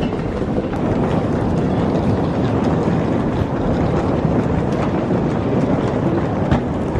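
Hard-shell suitcase wheels rolling over a tiled floor, a steady rumble, with a single knock near the end.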